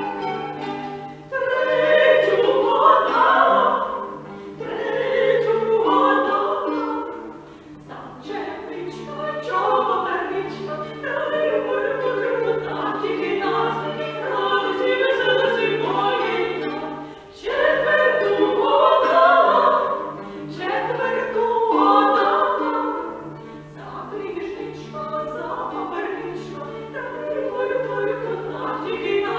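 A woman's voice singing a Ukrainian baroque kant in phrases a few seconds long, with a plucked kobza accompanying.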